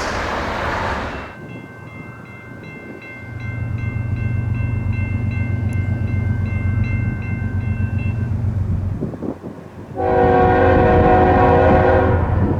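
Train sounds: rail noise fades in the first second, then a bell dings about twice a second over the low rumble of a diesel locomotive, and a loud locomotive air horn sounds about ten seconds in.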